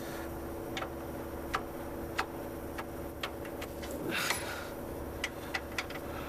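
Hand tools being handled: about eight light, sharp clicks and clinks at uneven intervals over a steady hum, with a short rustle about four seconds in.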